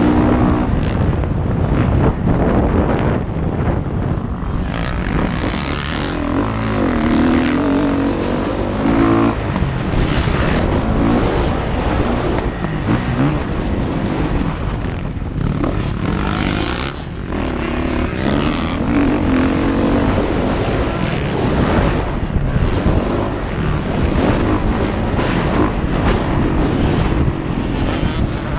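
Motocross dirt bike engine running hard around a track, its pitch rising and falling repeatedly as the rider revs and shifts, heard close up from an onboard helmet camera.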